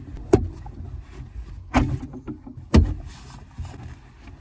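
Three sharp knocks with low thumps and fabric rustling as someone kneels and moves about inside a hard-shell rooftop tent, handling its bedding and frame; a short rustle near the end.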